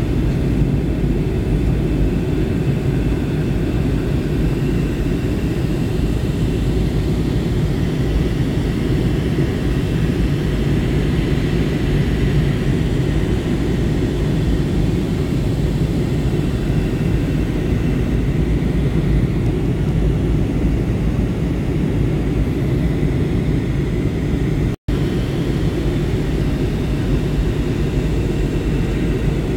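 Airliner cabin noise in descent: a steady, even roar of engines and airflow heard from a window seat, heaviest in the low end, with a faint high whine. The sound cuts out for an instant a few seconds before the end.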